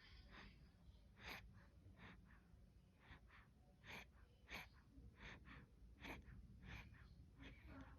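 Faint snoring from a sleeping animal or person: short, breathy snores that come irregularly, about two a second.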